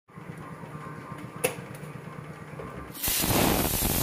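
Sliced bitter gourd dropped into hot oil on an iron tawa, sizzling loudly from about three seconds in. Before that there is only a faint low sound with a single knock.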